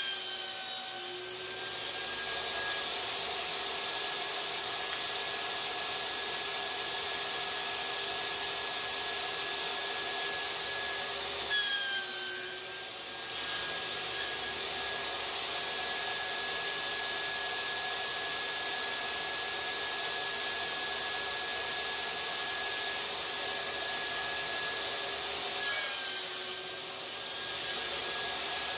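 Table saw running steadily, its motor whine dipping briefly in pitch three times as the blade, tilted for an angled bow tie cut, bites through a wooden block pushed on a crosscut sled.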